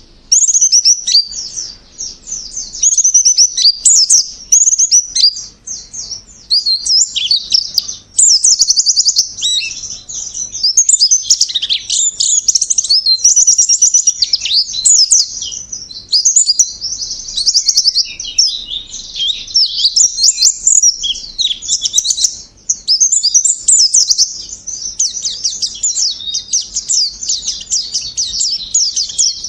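Pleci (white-eye) singing: long, fast, high-pitched warbling trills and rolls, with only brief breaks.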